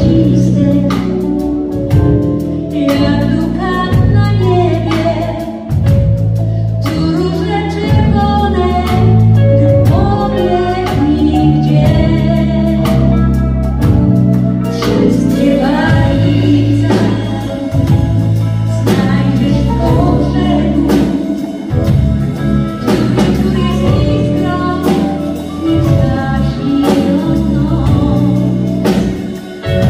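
Live band playing an instrumental break: drum kit keeping a steady beat under electric bass, guitars and keyboard, with a flute playing the melody.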